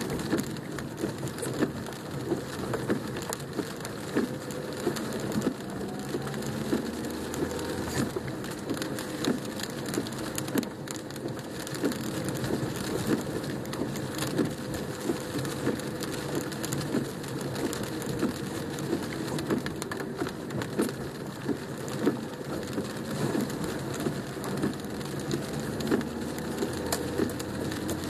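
Heavy rain pattering on a car's roof and windshield, heard from inside the cabin: a dense steady patter with many sharper individual drop hits.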